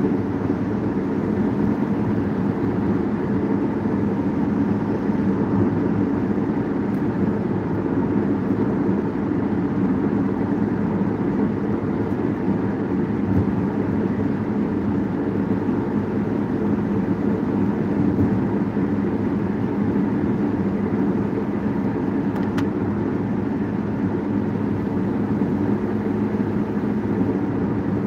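Steady road noise and low engine hum heard inside a car's cabin while driving along a highway.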